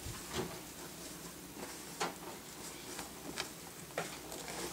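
Soft handling noises from an item being taken out of a bag: a few light taps and rustles spread out at irregular intervals.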